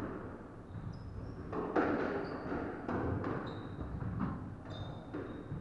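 Several dull thuds and knocks of a squash ball and feet on a wooden court floor, spaced out, with short high squeaks of court shoes on the boards.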